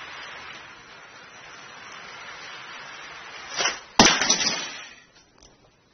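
Toy train derailing: a sharp crash about four seconds in, followed by about a second of clattering.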